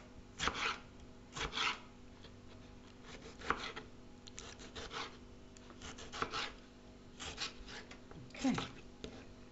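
Knife slicing and dicing a tomato on a plastic cutting board: short, irregular strokes of the blade meeting the board, roughly one every second or so, some in quick pairs.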